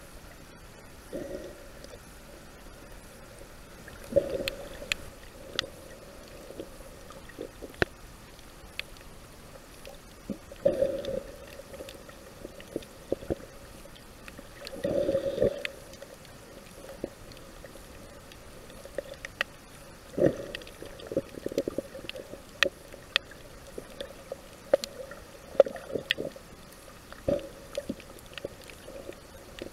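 Underwater sound picked up by a camera beneath the surface: water gurgling in irregular bursts about a second long, with many scattered sharp clicks in between.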